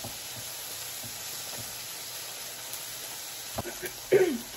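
Pork belly and beef sizzling on a tabletop griddle, a steady frying hiss. Near the end there are a couple of light clicks, then a brief vocal sound falling in pitch, the loudest moment.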